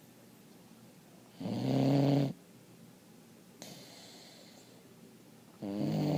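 Loud snoring: two long, low-pitched snores about four seconds apart, one about a second and a half in and one near the end, with quieter breathing in between.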